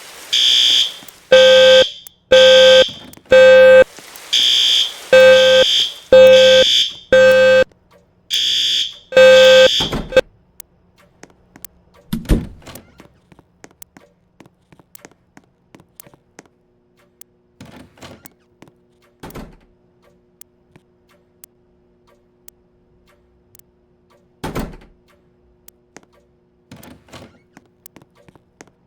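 Fire alarm evacuation speakers sounding a loud pulsing alarm tone, about ten beeps each under a second long. The tone cuts off about ten seconds in. Faint scattered clicks and two dull thuds follow.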